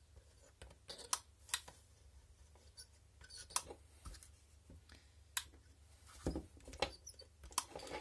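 Scattered light clicks and taps as a small circuit board, a solder spool and a soldering tool are handled on a wooden workbench while a diode is being desoldered, over a faint steady low hum.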